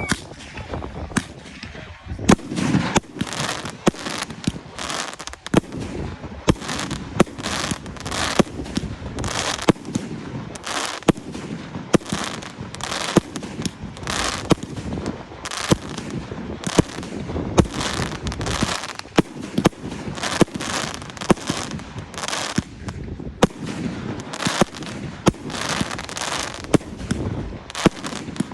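Fireworks display: a dense, irregular run of sharp bangs and crackling, several a second, with a louder bang standing out about every second.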